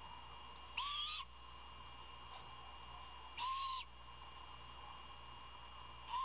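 Great horned owlet giving its begging screech: three hissing, whistled calls of about half a second each, spaced about two and a half seconds apart, the way a nestling calls for food.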